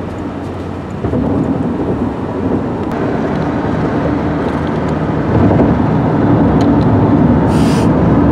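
Road and engine noise inside a car's cabin at highway speed: a steady rumble that gets louder about a second in and again about five seconds in.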